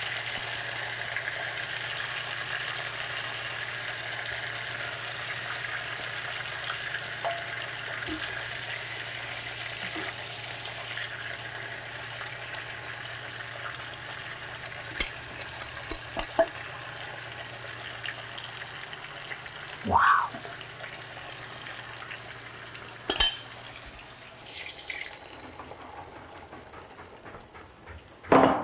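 Chicken breast frying in sauce in a pan, a steady sizzle that slowly dies down, with a metal spoon clinking against the dish and the glass sauce bowl now and then, loudest about two-thirds in and at the very end. A low steady hum stops about two-thirds of the way through.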